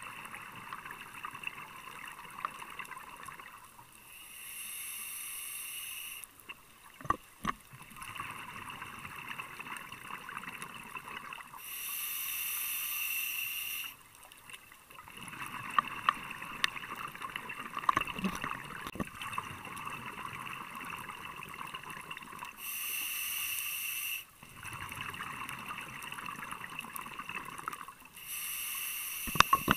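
A scuba diver's exhaled breath bubbling out of the regulator underwater, in four bursts of about two seconds each, several seconds apart. Between the bursts there is a steady crackle of small clicks.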